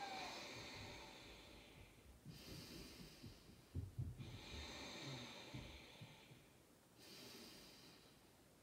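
Slow, audible breathing through the nose, about four long breaths in and out, each a couple of seconds long. A few soft low thumps come about four to six seconds in.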